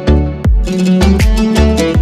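Background music with a steady beat: a Latin-flavoured track with a heavy low drum hit about twice a second and plucked instrument notes.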